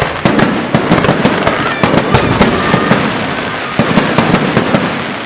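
Fireworks going off: rapid clusters of sharp bangs and crackles over a continuous rumble.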